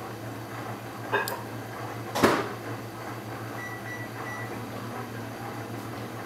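Tools working a Tigon disc-detainer padlock during picking: a small click about a second in and a louder sharp metal knock about two seconds in, over a steady low hum.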